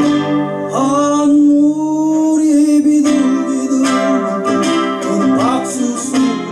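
A man singing a Korean folk song to his own strummed nylon-string classical guitar, the voice holding long notes over an even strumming rhythm.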